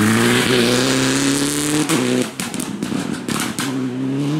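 Citroën DS3 rally car engine accelerating hard, its note climbing steadily until a gear change about two seconds in. Another engine note starts rising near the end.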